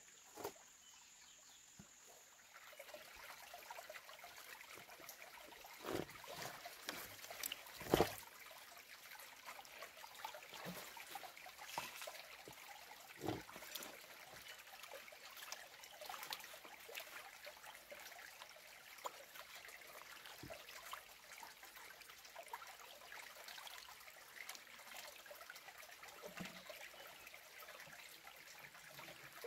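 Water trickling, with scattered small clicks and knocks throughout and a sharper knock about eight seconds in.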